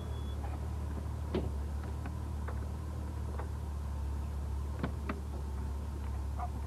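Steady low rumble with a few scattered light clicks and knocks, among them a car door being opened.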